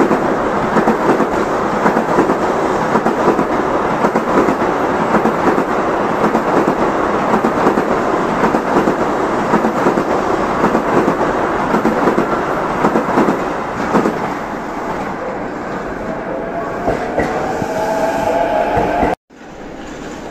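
Tokaido Shinkansen N700-series train passing, a steady loud rush of wheel and running noise that eases after about 14 seconds, with a faint squeal near the end, then cuts off suddenly.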